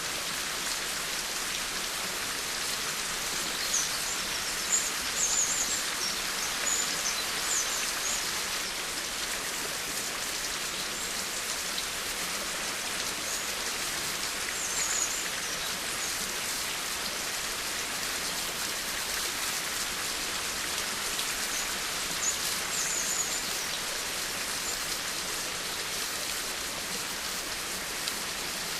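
Steady rain falling, an even hiss of many drops on surfaces, with a few short high chirps heard several times over the rain.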